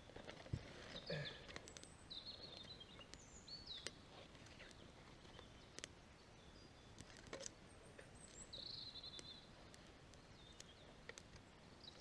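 Faint birdsong, a few short high trilled phrases, over a quiet background with scattered sharp crackles from a small campfire of twigs and birch bark catching.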